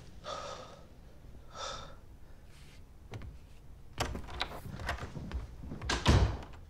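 Two short breaths, then a run of knocks and clicks from about four seconds in, ending in a heavy thud about six seconds in.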